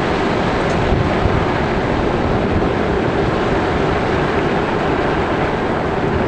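Steady road and engine noise heard from inside a moving vehicle, a constant drone with the rush of tyres and air.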